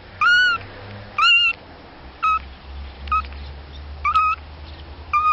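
Kitten mewing: about six short, high-pitched mews, roughly one a second.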